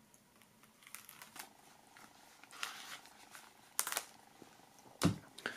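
Knife blade slitting the cellophane shrink wrap along the edge of a CD digipack: a faint rasping scrape with small plastic crackles and clicks, a sharper click shortly before the end, then a soft knock.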